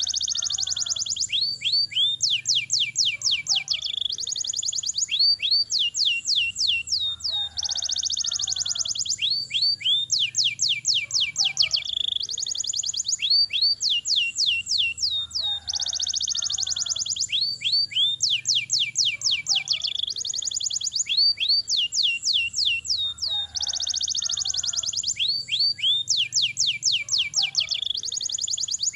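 Domestic canary singing a long rolling song: fast runs of high downward-sweeping notes and buzzy trills with almost no pauses. The same sequence of phrases comes round again about every eight seconds, as in a looped recording.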